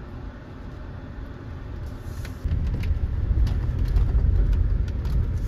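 A vehicle driving up a rough mud road. Its low rumble grows much louder about two and a half seconds in, with scattered knocks and rattles from the bumpy surface.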